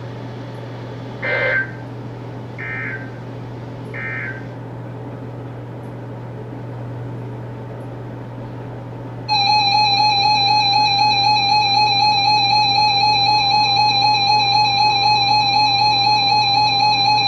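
Three short chirping data bursts of the EAS/SAME end-of-message code from a NOAA Weather Radio broadcast, about a second and a half apart, over a steady radio hum. About nine seconds in, a loud steady EAS attention tone starts, the harsh two-tone alert that opens the next warning.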